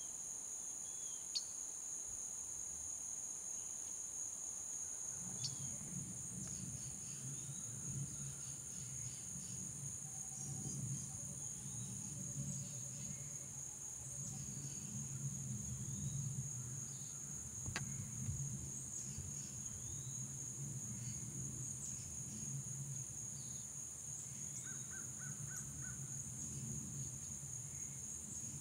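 Steady, high-pitched chorus of summer insects, with scattered short bird chirps over it. A low rumble comes in about five seconds in, and there is one sharp click about two-thirds of the way through.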